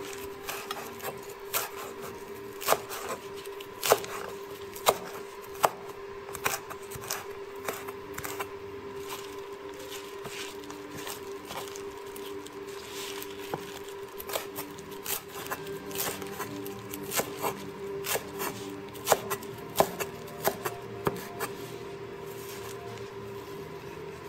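Chef's knife chopping fresh mint and basil leaves on a wooden cutting board: irregular sharp taps of the blade on the board in quick runs, with a lull in the middle while the leaves are gathered up. A steady faint hum runs underneath.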